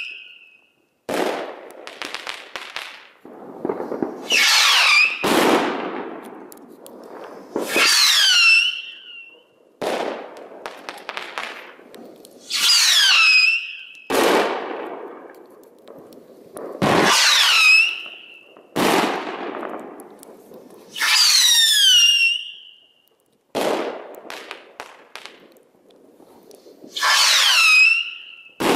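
Homemade 10 mm rockets with whistle-mix motors (potassium perchlorate and sodium salicylate) shrieking as they climb, one after another, each shrill whistle falling in pitch over about a second. Between the whistles come sharp bangs and crackle from the titanium or star heads bursting.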